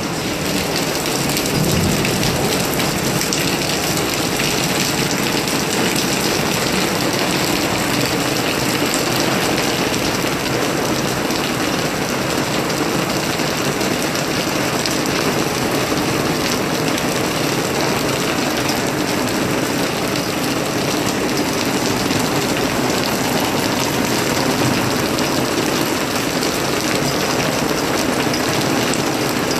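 Steady rain falling, a dense even hiss at a constant level.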